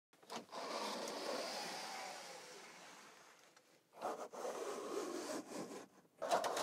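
Pleated blinds on a campervan's windows being slid open by hand: three stretches of sliding noise, the first long and fading away, the second about four seconds in, the third near the end.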